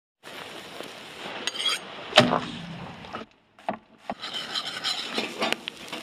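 Meat grilling in a wire grill basket over a fire: a crackling, sizzling noise with several sharp knocks, the loudest about two seconds in. The noise cuts out briefly just past the middle.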